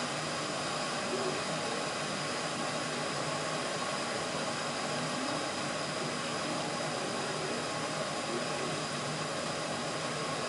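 Glass electric kettle heating water, a steady rushing hiss.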